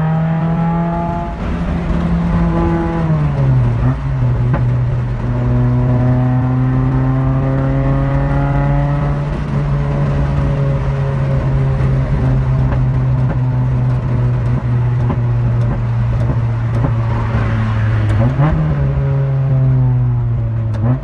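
Honda B18 four-cylinder engine fitted with a 76 mm velocity stack, running at steady revs while the car is driven. The engine note drops in pitch about three seconds in, holds, and rises again near the end.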